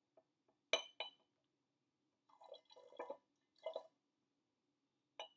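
A glass shot glass clinking against the mouth of a liquor bottle a little under a second in and again near the end, with faint trickling and dripping as liquor is poured from the glass back into the bottle.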